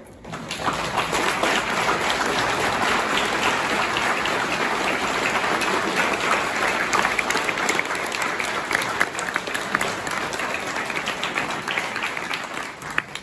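Audience applauding: many people clapping together, starting just after the beginning, holding steady, then fading out near the end.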